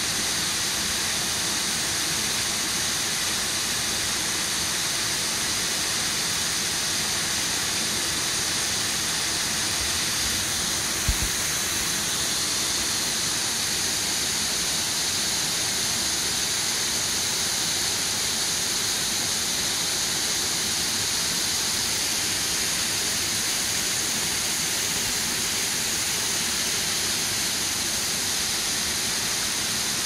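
River water pouring over a low concrete weir and churning into the pool below: a steady, even rush of falling water. A single short thump about eleven seconds in.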